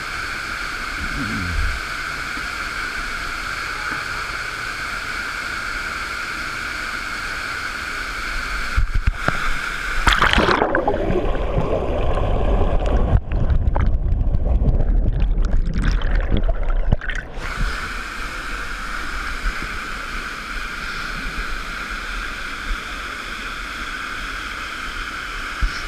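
Waterfall rushing steadily. From about nine seconds in, for some eight seconds, the sound turns muffled and gurgling with a loud low rumble and uneven splashing, then the steady rush returns.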